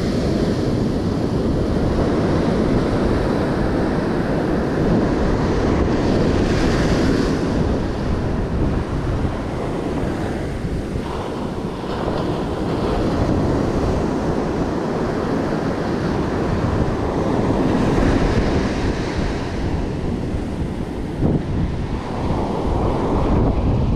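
Surf breaking and washing up a sandy beach, with wind buffeting the microphone; the wash swells and eases as the waves come in.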